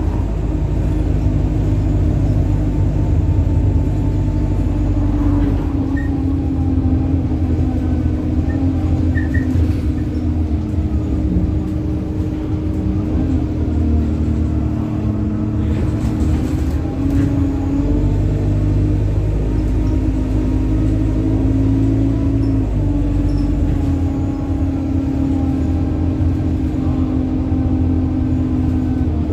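Alexander Dennis Enviro 200 single-deck bus driving, heard from inside the cabin. A steady drone from the engine and drivetrain runs throughout, with a whining tone that shifts up and down in pitch several times as the bus speeds up and slows. A few brief knocks and rattles are heard about halfway through.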